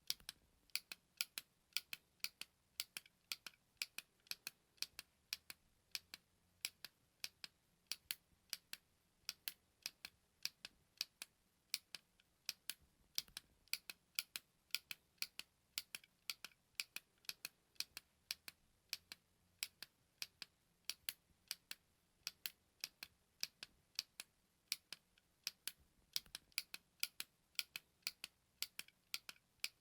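A button being pressed over and over, giving sharp clicks about two to three times a second, some in close pairs.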